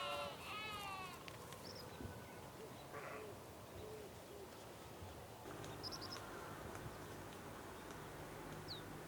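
A farm animal's bleat, a wavering call that ends within the first second, then quiet outdoor background with a few faint, short, high chirps.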